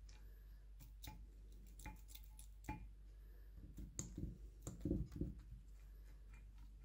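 Faint, irregular clicks and light knocks of milling-machine gearbox parts being fitted and handled, a little busier in the second half.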